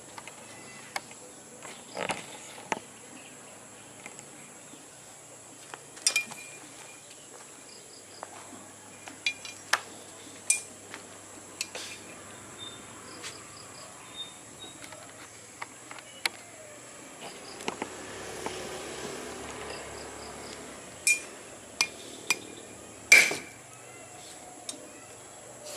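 Golok (machete) blade chopping an 8 mm steel rod laid across an anvil: a series of sharp metallic clanks, several with a short ring, the loudest near the end. A steady high insect drone runs underneath.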